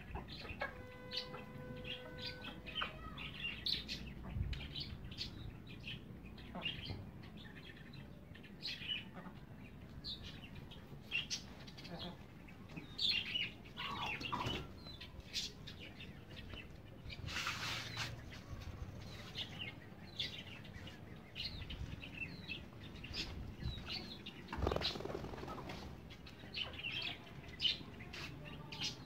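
Backyard birds chirping in many short calls, with a burst of wing flapping a little over halfway through.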